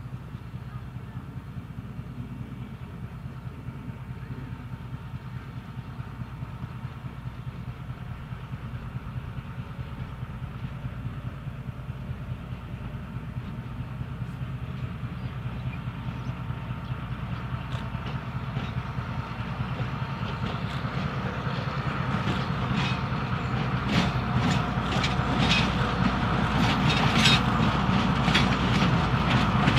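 Narrow-gauge diesel locomotive pulling two coaches, its engine drone growing steadily louder as it approaches. From about two-thirds of the way in, the wheels click over the rail joints, the clicks coming louder and closer together near the end.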